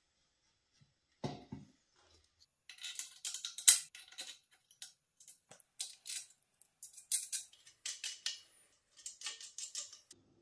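Steel bolts, washers and nuts clinking and rattling against each other and the steel tube of a fixture as they are fitted by hand, in bursts of small metallic clicks. A dull knock comes about a second in.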